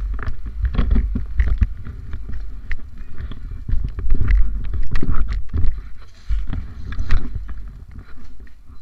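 Wind buffeting the microphone on a moving motorcycle: a heavy, uneven rumble with scattered knocks over the road and engine noise.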